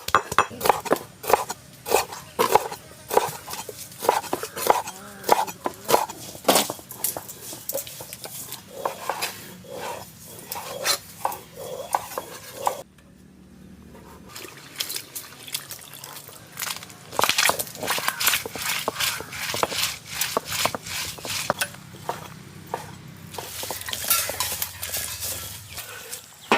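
Rapid clinks and knocks of kitchen utensils and vessels during food preparation, breaking off suddenly about halfway and then starting again.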